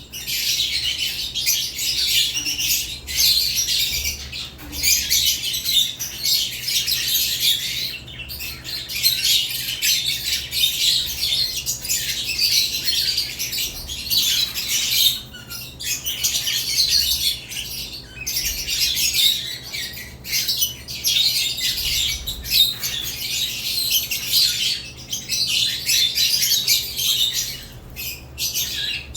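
Caged lovebirds chirping, a dense, nearly unbroken high-pitched chatter with a couple of brief lulls.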